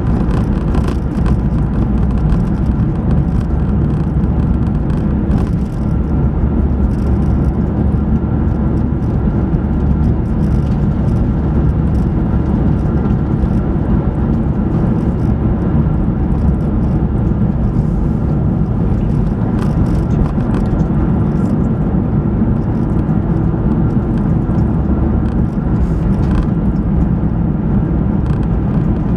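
Steady road and engine noise from inside the cabin of a moving car.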